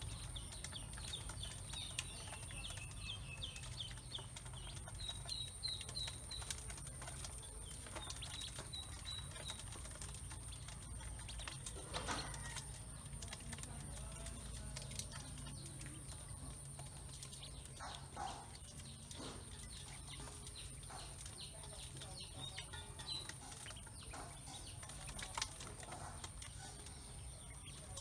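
Ducklings peeping in runs of short, high chirps, mostly in the first ten seconds. Scattered clicks and taps come from their bills and feet against the metal basin as they peck at grain feed.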